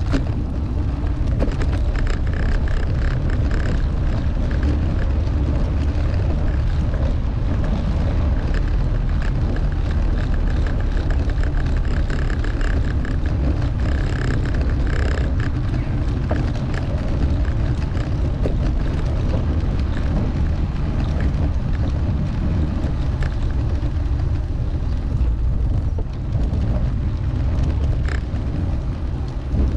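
Steady wind rumble on the microphone of a moving bicycle, with tyre and road noise underneath.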